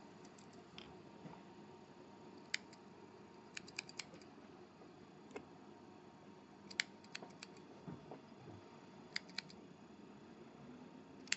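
Small scissors snipping the cotton wick ends on a dripper's coil deck: a series of short, sharp snips, in little clusters of two to four.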